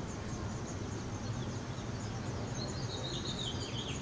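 House finch nestlings begging at the nest: a steady run of thin, high cheeps, joined in the second half by a series of slightly lower chirps stepping down in pitch. A steady low hum runs underneath.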